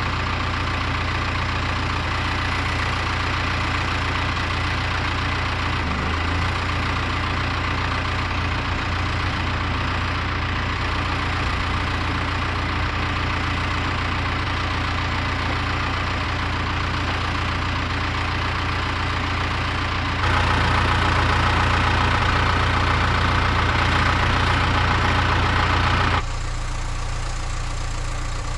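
Engine idling steadily with a low hum, stepping louder about twenty seconds in and dropping back a few seconds later.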